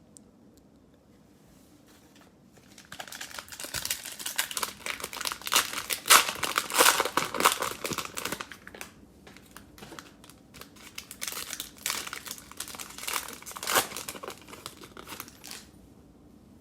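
Cellophane wrapper of a trading card cello pack being torn open and crumpled. It starts a few seconds in, with two spells of crackling separated by a short lull.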